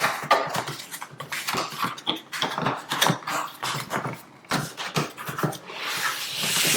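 Cardboard box and packaging being opened and handled: irregular rustling, scraping and light knocks, with a longer hissing scrape near the end.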